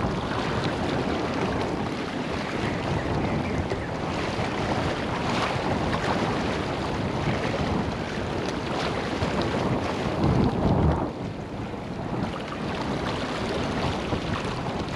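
Sea washing against rocks, with wind blowing across the microphone; a stronger gust buffets it about ten seconds in.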